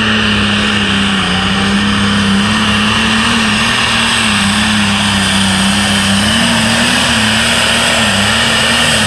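Modified pulling tractor's engine running flat out under load as it drags the weight sled, its pitch holding steady with a few small dips. Right at the end the engine note drops away as the throttle is cut and the pull ends.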